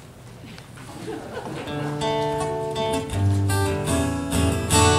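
Acoustic guitar strummed as a song's introduction, starting about a second and a half in and getting louder, with a small drum kit's snare and bass drum joining about three seconds in.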